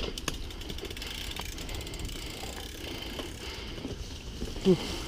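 Mountain bike rolling slowly over a dirt trail: tyre rumble with scattered clicks and rattles from the bike. A short vocal sound comes near the end.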